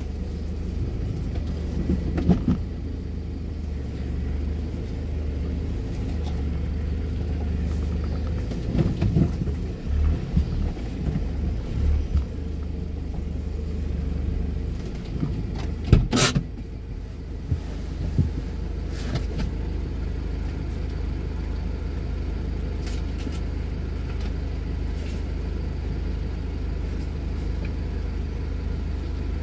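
Steady low rumble of a road vehicle, with a few irregular bumps and one sharp knock about 16 seconds in.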